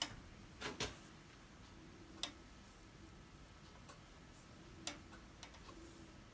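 A handful of faint, short clicks and taps a second or more apart as a painted wooden bowl is handled and turned by hand on a lathe that is switched off.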